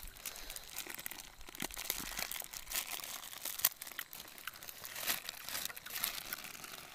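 Plastic bread bag crinkling and rustling as it is handled, a dense run of irregular crackles.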